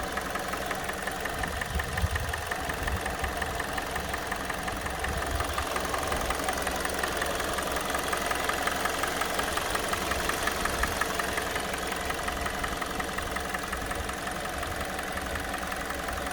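Hyundai/Kia G4NA 2.0-litre inline-four petrol engine idling steadily with a fast, even knock from inside the engine. The knock appears only once the engine is warm and is not there on a cold start; its cause is unknown to the owner.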